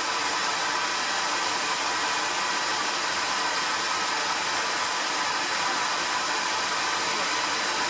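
Bee vacuum's motor running steadily: a continuous rushing hiss with a faint steady whine.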